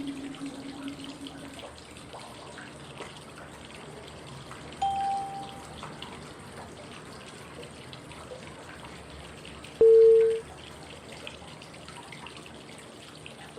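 Steady flowing-water white noise with a short pitched cue tone every five seconds, each tone at a different pitch; the loudest comes about ten seconds in. The tones mark the changes between the inhale, hold and exhale phases of 5-5-5 breathing.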